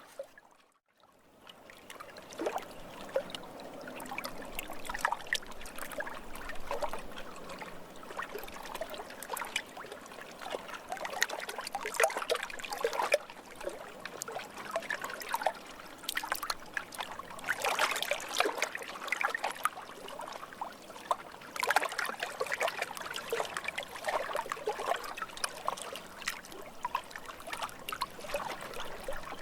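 Lake water splashing and trickling in small irregular splashes, with a brief drop to near silence about a second in and louder splashy spells later.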